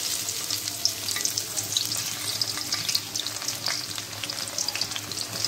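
Chopped onions frying in hot oil in a karai: a steady sizzle dotted with many small crackles and pops.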